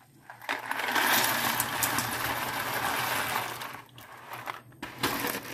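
Dry penne pasta pouring from a cardboard box into a steel saucepan of boiling water, a rattling rush of many small clicks lasting about three seconds, with a brief second rattle near the end.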